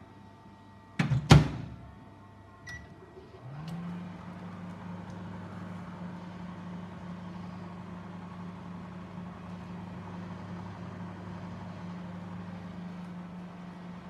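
Sharp microwave oven: a loud clunk about a second in, a short beep, then the oven starts up and runs with a steady electrical hum while heating bread.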